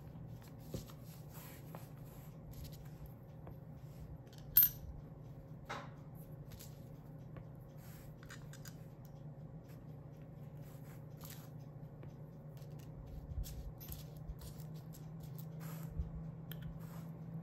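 Small pieces of scrap glass being handled and set down, making scattered light clicks and taps, with one sharper click about four and a half seconds in. A low steady hum runs underneath.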